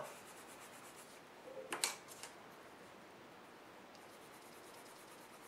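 Faint colored pencil strokes on paper, with a short clatter of sharp clicks about two seconds in as one colored pencil is put down and another picked up.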